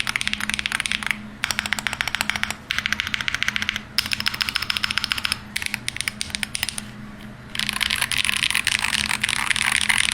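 Fast typing on a Hall effect keyboard: several bursts of rapid keystroke clicks with brief pauses between them, and a longer, denser burst near the end.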